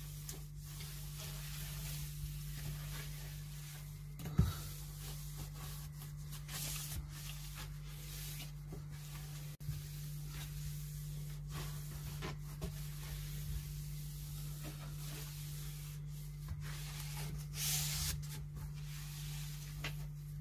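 Cloth wiping a kitchen cabinet shelf, rubbing back and forth in repeated strokes, with a single knock about four seconds in.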